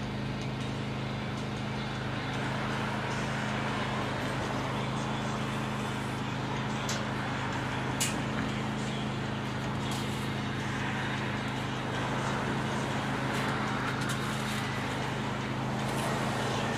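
Street ambience: a steady low mechanical hum over even traffic noise. A few faint clicks, the sharpest about eight seconds in.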